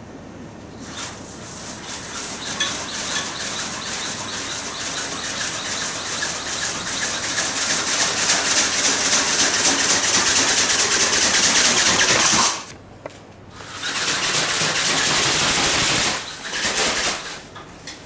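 Radio-controlled pterosaur ornithopter's small geared brushless motor whirring as its flapping wings beat, starting about a second in and growing louder. It cuts out abruptly about twelve seconds in, runs again for a couple of seconds, then comes in a few short bursts before stopping near the end.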